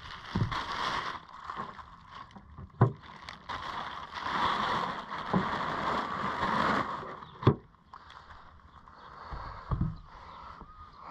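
Plastic bags rustling and crinkling as burley is pulled out of a cooler, with two sharp knocks and a dull thump near the end.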